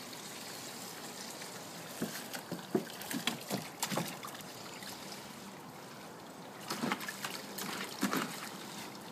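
A German Shepherd splashing in a shallow plastic kiddie pool, pawing and snapping at the water, in two spells: from about two seconds in, and again near the end. Under it a garden hose trickles steadily into the pool.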